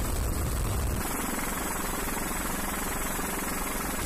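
Helicopter in flight: steady rotor and turbine noise. About a second in the deep rumble falls away and a thinner, hissier rotor sound takes over.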